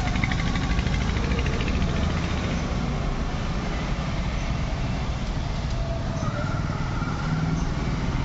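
Steady low outdoor background rumble with faint distant voices, strongest in the first couple of seconds. The lizard itself makes no audible sound.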